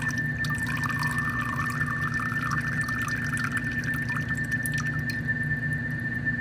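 A thin stream of water from a faucet running into a glass measuring cup in a steel sink, dwindling about four seconds in to scattered drips. A steady high-pitched whine sounds throughout.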